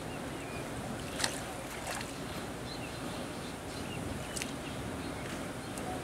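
Shallow river water swishing and lapping as a mesh hand net on a bamboo pole is swept through it, with a few sharp clicks, the loudest about a second in.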